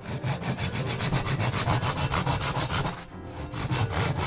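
A cat scratching its claws on a corrugated cardboard scratch pad: fast, rhythmic rasping strokes, with a brief pause a little after three seconds in.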